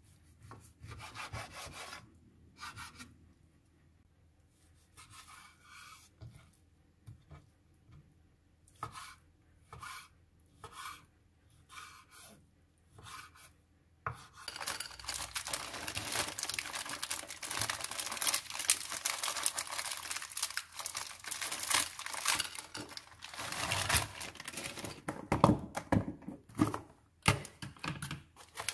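Chef's knife cutting raw chicken breast on a wooden cutting board: separate slicing strokes at first, then from about halfway a fast, continuous run of chops as the meat is diced into cubes.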